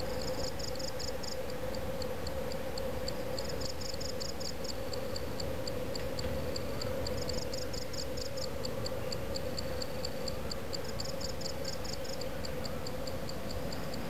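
Crickets chirping: high-pitched pulsed trills in bursts about a second long, repeating every three to four seconds with scattered single chirps between, over a steady low hum.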